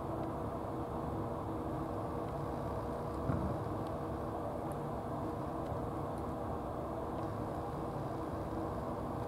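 A steady low mechanical hum with a few constant tones, like a motor running, and a brief faint thump about three seconds in.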